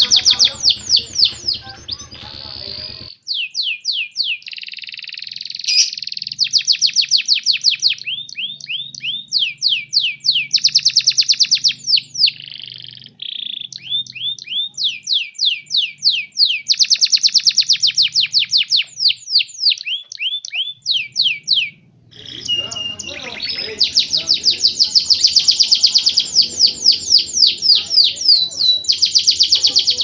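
Domestic canaries in breeding condition singing: long, high-pitched, rapid trills of repeated down-sweeping notes, in phrases broken by short pauses.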